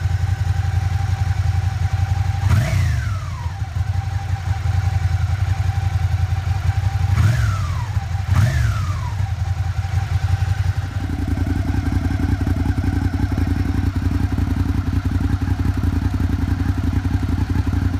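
Suzuki SFV650 Gladius V-twin idling through its stock exhaust, blipped three times, once about two and a half seconds in and twice in quick succession around seven to eight seconds, the revs rising sharply and falling back each time. About eleven seconds in, the sound switches to the same engine idling through an aftermarket IXIL Hyperlow dual slip-on exhaust, with a changed, fuller tone.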